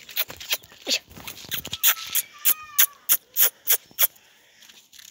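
Quick crunching steps on gravelly dirt, about three a second, with a short high whine from a puppy about two and a half seconds in.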